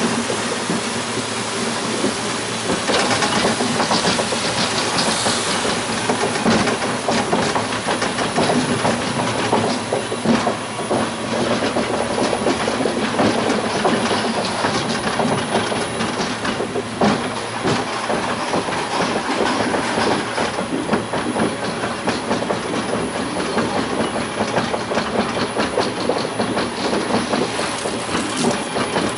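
Vekoma/Caripro monorail car running along its elevated rail: a steady rumble of wheels on the track, full of small clicks and rattles.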